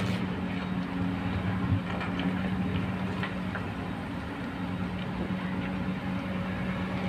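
Diesel engines of Komatsu and Kobelco hydraulic excavators running steadily under load while digging, with a constant low hum. A few faint knocks sound now and then.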